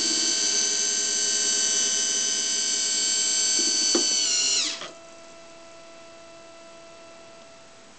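Small electric motor and gears of a scale model Cat 789C haul truck whirring steadily as they tip the dump body up. About four and a half seconds in, the pitch falls as the motor winds down and stops, leaving a faint steady hum.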